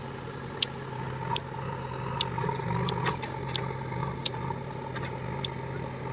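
Diesel engine of a backhoe loader or tractor running steadily at low speed, a little louder two to three seconds in, with a sharp tick roughly every second.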